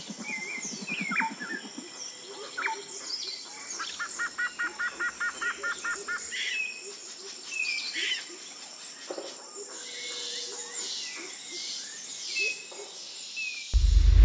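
Many wild birds calling and singing: assorted chirps and whistles, including a quick run of about ten repeated notes, over a steady high-pitched whine. Near the end a loud low boom cuts in.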